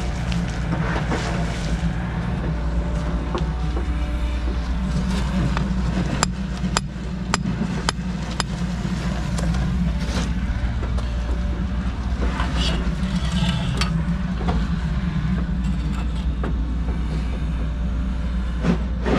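A club hammer strikes a steel string-line pin five times, about two sharp knocks a second, driving it a little lower to give the line a fall. A steady low engine rumble runs underneath.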